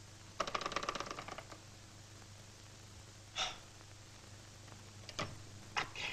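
Old wall telephone rattling as the call is ended: a quick run of rapid clicks lasting about a second, over a steady soundtrack hum. A short hiss and a few brief sharp noises follow later.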